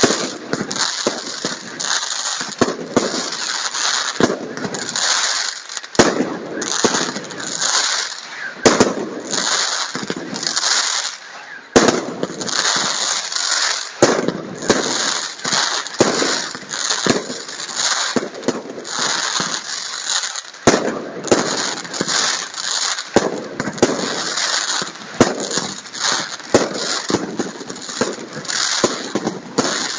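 Aerial fireworks going off in quick succession: a continuous crackle of bursting stars under a stream of sharp bangs, with louder single reports every few seconds.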